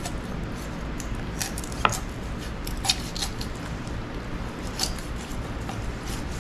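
A knife cutting through a raw chicken's thigh on a plastic cutting board: scattered light clicks and taps of the blade and joint, with sharper ones about two and three seconds in, over a steady low hum.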